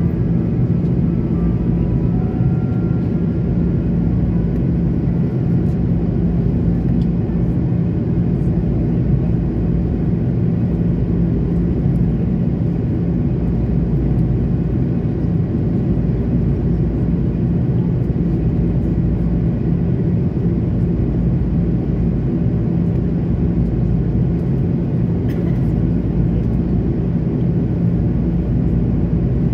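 Steady cabin noise of an Airbus A330-200 in flight, heard from a window seat beside the wing: the drone of its General Electric CF6 turbofans blended with the rush of air past the fuselage, with a steady low hum underneath.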